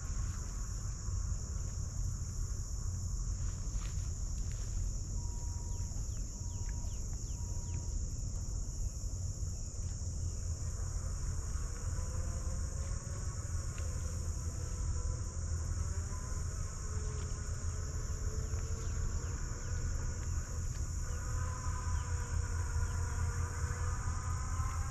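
Chorus of insects droning steadily in an even, high-pitched hum, over a low steady rumble.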